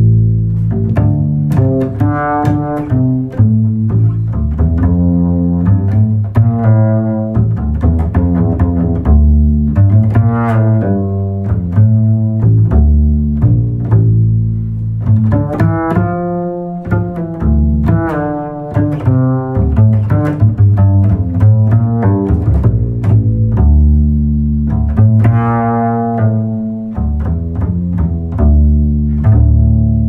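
Instrumental background music: a melody of string notes, some plucked and some bowed, over a steady low bass line.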